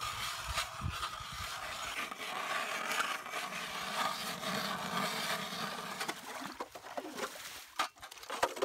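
Hand-cranked ice auger boring through lake ice, a steady grinding scrape of the blades cutting ice. It breaks into scattered knocks and scrapes over the last two seconds.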